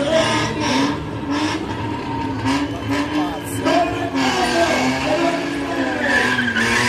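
BMW E36 drifting: its engine revving up and down as the throttle is worked through the slide, with tyre squeal on the asphalt.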